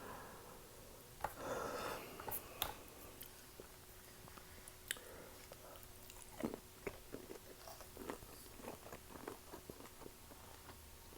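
Close-miked eating: biting into and chewing a large shrimp in butter sauce, with a few sharp clicks and a short noisy burst early on, then a run of quick clicking mouth sounds in the second half.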